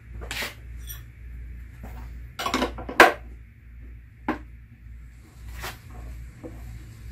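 A wrench and the parts of an Orion XT8 Dobsonian telescope's base being handled: a series of separate clanks and knocks, the loudest a sharp clank about three seconds in, over a steady low hum.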